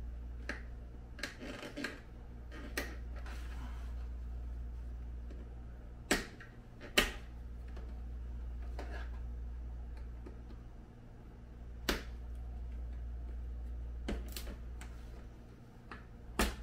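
Sharp plastic clicks and snaps, spaced irregularly several seconds apart, as the mesh liner of a Snoo bassinet is pushed back into its plastic frame and engages. A steady low hum runs underneath.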